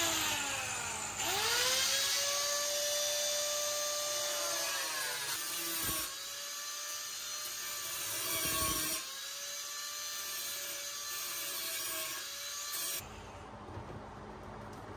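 Corded angle grinder with a cutting disc running, cutting the aluminium deck of a jon boat. Its whine spins up about a second in, sags in pitch twice as the disc bites into the metal, and stops about two seconds before the end.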